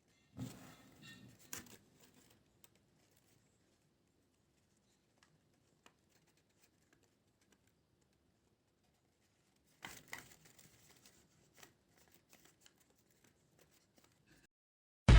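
Paper rustling and crinkling as it is handled, in two short spells with a few faint clicks between.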